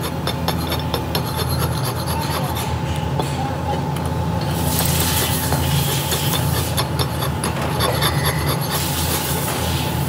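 Hand file rasping over the edge of a cast aluminium motorcycle wheel hub in quick repeated strokes, dressing off the casting flash. A steady low hum runs underneath.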